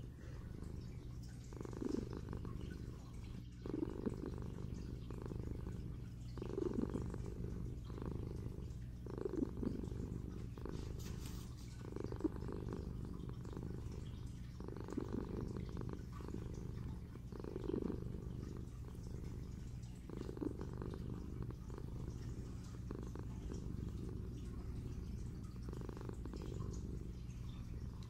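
Kitten purring steadily while being stroked, with a louder swell every two to three seconds.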